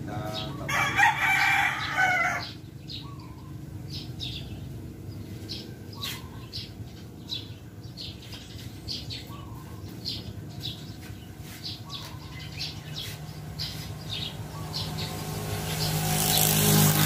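A rooster crows once, about a second and a half long, near the start, followed by short high chirps repeating over a steady low hum. A vehicle passes near the end, rising in level.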